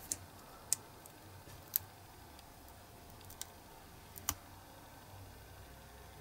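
Sharp little clicks and snaps, about five in the first four and a half seconds, as a small two-part silicone rubber mould is pulled and peeled open by hand.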